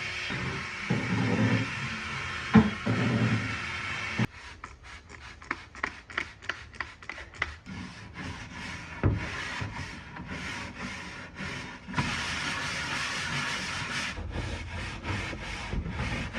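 Hand scrubbing of the dresser's wooden surfaces during cleaning: quick back-and-forth rubbing strokes, about three a second, starting about four seconds in. Before that come a few dull knocks and handling sounds, with one sharp knock.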